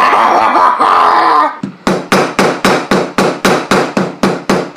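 A loud, sustained noise for about a second and a half, then a rapid run of hammer blows, about four a second, smashing a plastic Rubik's cube apart.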